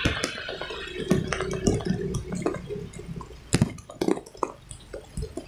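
Rain water dripping and splashing, with many irregular sharp clicks and knocks. A hiss at the start fades within about the first second.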